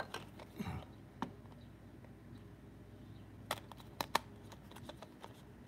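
Light clicks and taps of plastic coin tubes being handled while a serrated knife blade is worked at a tube's seal, with three close together about three and a half to four seconds in.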